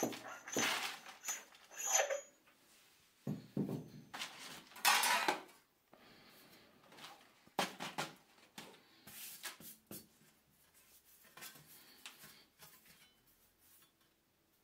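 Clinks and knocks of a steel press punch being set onto a thin metal sheet over a paper die, then rattling and rustling as the embossed sheet is lifted and handled and torn paper scraps are shaken off it. The sounds are irregular and come in short bunches, growing sparser toward the end.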